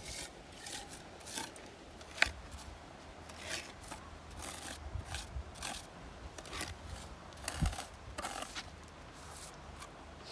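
Repeated short scraping or rasping strokes at an uneven pace, with a sharp knock about two seconds in and a dull thump near the end.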